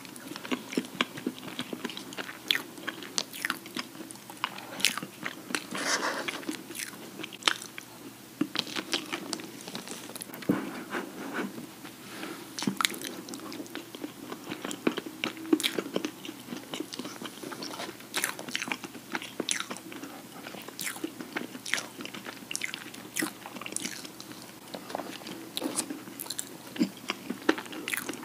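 Close-miked chewing and wet mouth clicks of people eating chocolate cake topped with melted chocolate, a steady stream of sharp irregular smacks and clicks.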